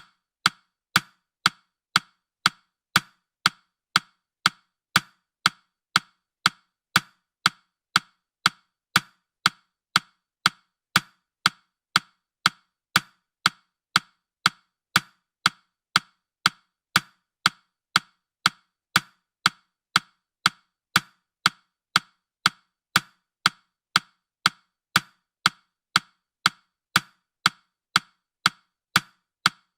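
Countdown timer's tick sound effect: steady, sharp, clock-like ticks, about two a second.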